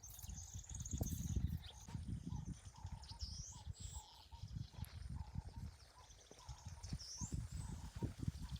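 Birds chirping in short repeated notes over irregular low thumps and rumbling.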